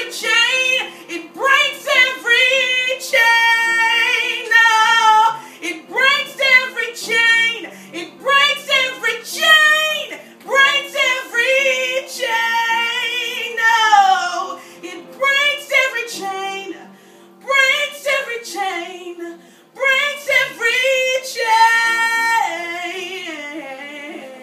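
A woman singing a gospel worship song solo, with long melismatic runs that slide up and down and sustained held notes. The last held note fades away near the end.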